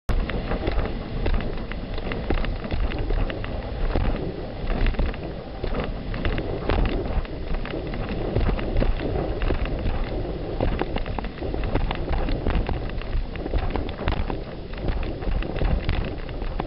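Wind rumbling over the microphone of a camera mounted on a windsurf mast while the board planes at speed, with a steady hiss and patter of spray and chop hitting the board and sail.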